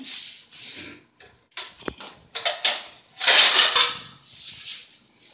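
Chopped radish pods (mongray) being crushed in a stone mortar: a run of rough crushing and scraping strokes, the loudest a little past halfway, with a sharp knock about two seconds in.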